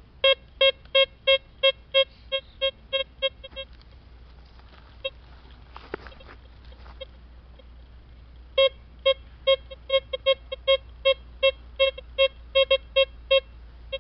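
Metal detector beeping as a small metal object is held near its search coil: a run of short, mid-pitched beeps about three a second that fade out over the first few seconds, then, after a pause, a second run of loud beeps for the last five seconds or so.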